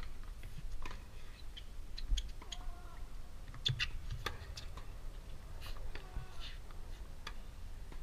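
Tennis rally: sharp pops of racquets striking the ball every second or so, with a few short squeaky chirps in between.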